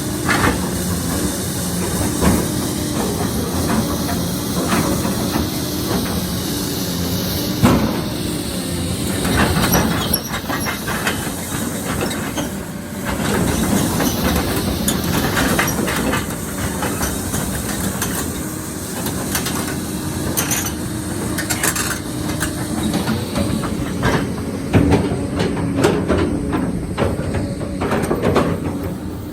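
Komatsu PC220-7 excavator's six-cylinder diesel engine running steadily, with a hiss and irregular metallic clanks and knocks throughout.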